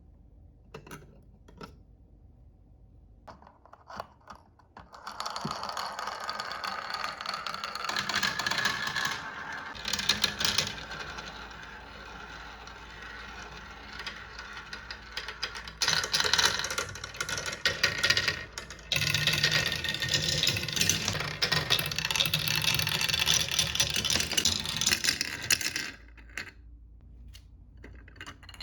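Many marbles rolling and clattering down marble run tracks, a continuous dense rattle of clicks and knocks. It starts with a few single clicks, builds to a loud run after about five seconds and thins back to scattered clicks near the end.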